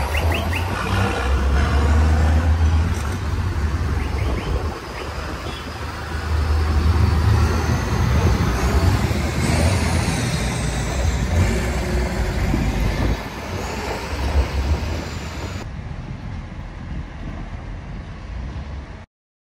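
Large diesel farm tractors driving past one after another, their engines' deep rumble swelling and fading as each goes by. The sound cuts off suddenly near the end.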